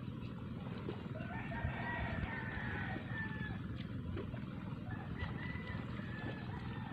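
A rooster crowing, faint and distant, twice: once about a second and a half in and again near the end. A steady low rumble runs underneath.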